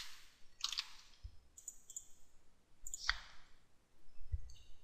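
Computer mouse clicks: about half a dozen sharp, quiet clicks at uneven intervals, with a couple of soft low thumps between them.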